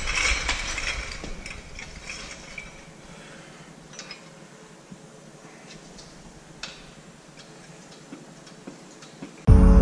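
Scattered light metallic clinks and clicks of tools and equipment being handled in a workshop, after a louder rattling noise that fades out over the first few seconds. Music comes in suddenly near the end.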